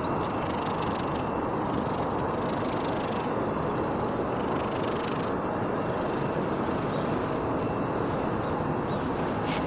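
Stray cat purring steadily, very close to the microphone, with a few faint clicks.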